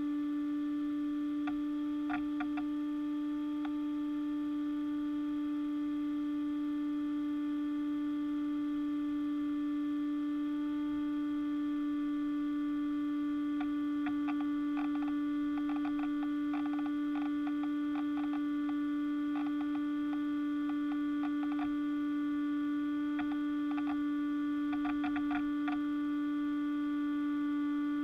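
Steady electrical hum at one low pitch, with fainter higher overtones, broken now and then by clusters of faint crackling clicks.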